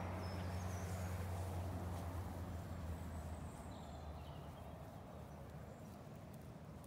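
Open-field ambience: a steady low hum that fades away about halfway through, with a few faint, short, high bird chirps.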